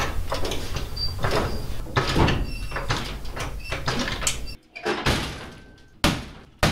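Pontiac GTO's heavy steel car door being worked and swung, with rattling and scraping, then several sharp metal thunks from about five seconds in as it is pushed shut against the body. A steady low hum runs underneath and cuts off abruptly after about four and a half seconds.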